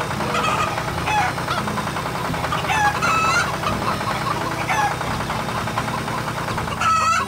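Chickens clucking in short, repeated calls over a steady low engine rumble.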